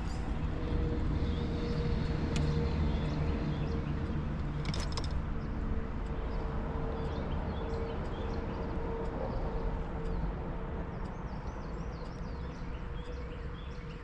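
An engine running steadily: a low rumble with a thin, even hum over it, and a couple of short clicks in the first five seconds.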